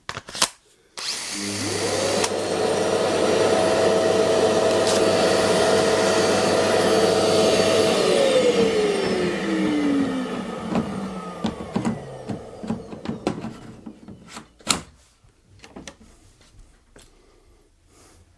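Dust-extractor vacuum switched on: its motor whines up to speed within about a second, runs steadily for around six seconds, then is switched off and winds down with a falling whine over about three seconds. A sharp knock comes about fifteen seconds in.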